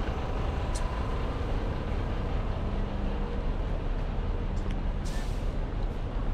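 City road traffic beside the pavement, with an electric bus alongside: a steady low rumble and faint hum with hardly any engine sound. A short hiss comes about five seconds in.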